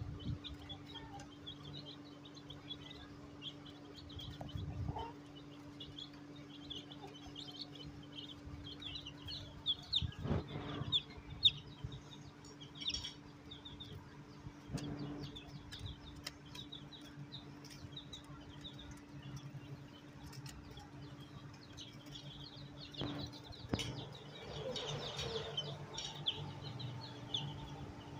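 Newly hatched chicks peeping: many short high cheeps overlapping one after another, over a steady low hum, with a few soft knocks.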